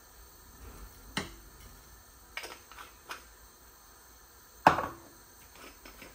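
Kitchenware being handled: a few sharp clinks and knocks, the loudest about four and a half seconds in.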